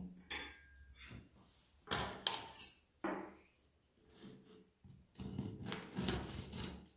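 A few light knocks on a wooden cutting board as a serrated knife and a baked biscotti log are set in place, then the knife sawing through the log's crisp, sugar-topped crust near the end. The log is warm from its first bake and is being sliced before the second.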